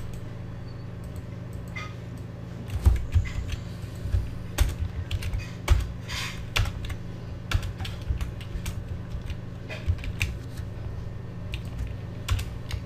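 Computer keyboard being typed on: irregular short runs of key clicks over a steady low hum.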